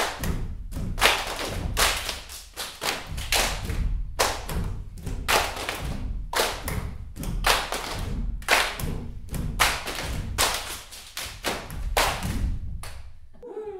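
A group of dancers clapping hands and stamping bare feet on a wooden floor in rhythm, roughly two beats a second, with heavy thuds under the claps. It breaks off near the end.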